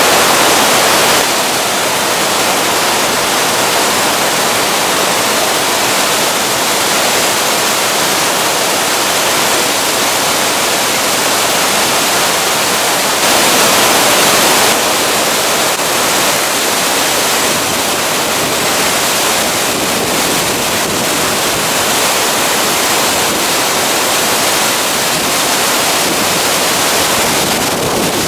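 Minoo Falls in spate, swollen with muddy floodwater from a typhoon's heavy rain, pouring with a loud steady rush. The rush gets briefly louder at the very start and again about halfway through.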